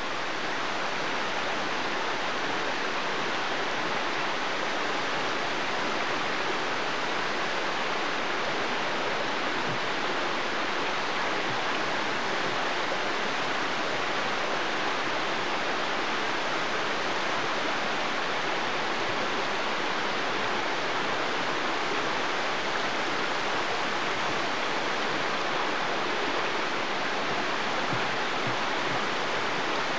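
Steady rush of a waterfall pouring over rocks, an even hiss with no change.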